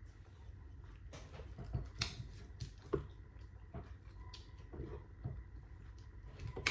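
Scattered small clicks, cracks and soft squishes of hands working at boiled seafood, shelling and eating it, the sharpest cracks about two and three seconds in.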